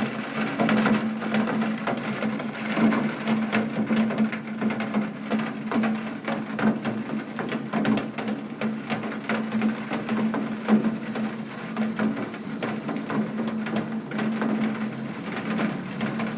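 Rain pattering, many separate drops tapping on a hard surface, over a steady low hum.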